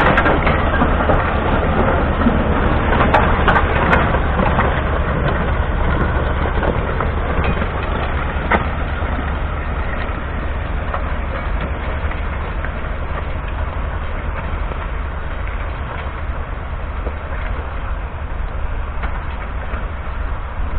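A John Deere 6930's 6.8-litre six-cylinder diesel pulling a Kuhn reversible plough under load: a steady low engine drone. As the plough bodies pass in the first few seconds, stubble and soil crackle and snap, and the engine then fades a little as the tractor moves away.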